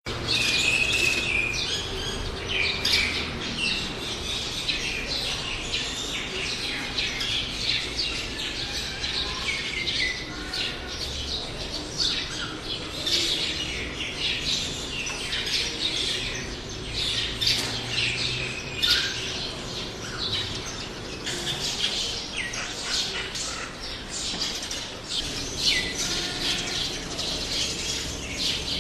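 A chorus of small birds chirping and chattering at once, sparrows among them, with many short, overlapping calls and a low rumble underneath.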